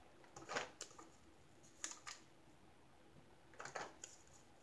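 Light clicks and crinkles from hands working small clear plastic storage containers and a sheet of sticker labels, as labels are peeled off and pressed onto the container lids. About five short events, with a small cluster near the end.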